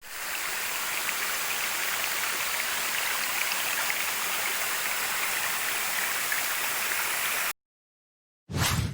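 Steady rushing of waterfall and stream water that cuts off abruptly, followed after a second of silence by a brief low thump.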